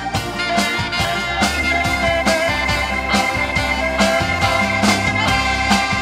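Live rock band playing an instrumental passage: drum kit keeping a steady beat under electric bass, keyboards and saxophone.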